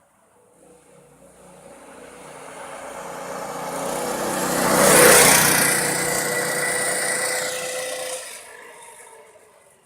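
Go-kart buggy with a Predator 212 single-cylinder four-stroke engine driving past at speed. The engine grows louder over about four seconds, is loudest about halfway through, then fades away after about eight seconds.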